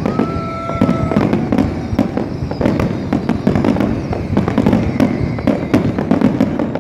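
Aerial fireworks display: a dense, continuous barrage of shell bursts and crackling reports, several a second. A steady high tone sounds for about the first second.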